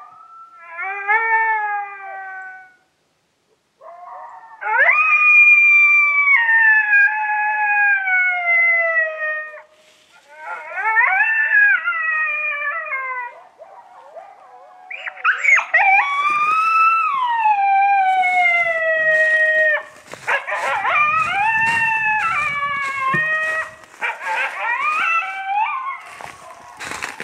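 Coyote howling: a series of long howls, each falling in pitch at the end. From about twenty seconds in they give way to a denser stretch of overlapping howls and yips, like a group howl.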